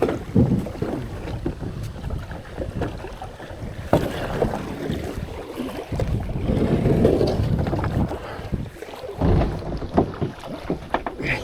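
Kayak paddle strokes dipping and splashing in choppy water, in uneven surges, with wind buffeting the microphone.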